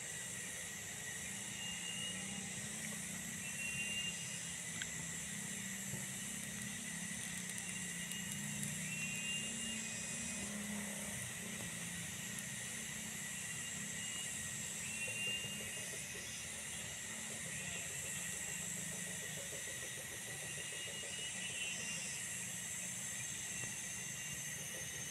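Outdoor ambience of a shaded tropical coffee garden: a steady high insect drone at several pitches, with short chirps repeating every few seconds and a faint low hum beneath.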